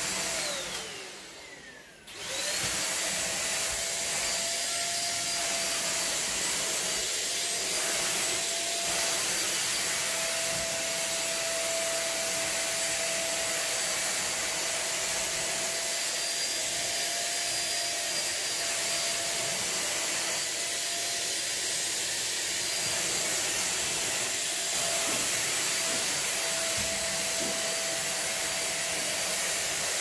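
Deerma DX700 corded stick vacuum cleaner switched off, its motor whine falling away in pitch. It is switched back on about two seconds in and then runs steadily with a high whine while being drawn over a mattress.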